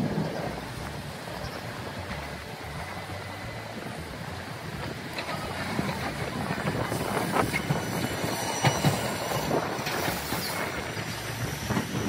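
Hiroshima Electric Railway streetcars running on street track: a steady rumble with a thin, high wheel squeal, and a run of sharp clicks from the wheels crossing rail joints and points in the second half.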